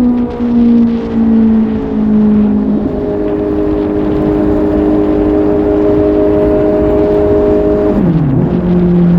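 Suzuki GSR750 inline-four engine under way. The revs ease down over the first few seconds, then hold steady at a cruise. Near the end they drop sharply and settle again.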